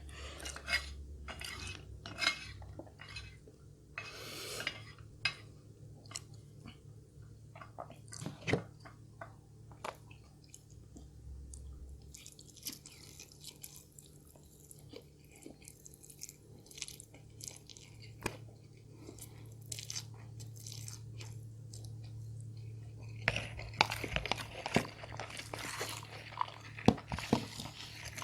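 A person chewing and crunching food in the mouth: sparse mouth clicks and chews at first, then a dense run of crunching about five seconds before the end.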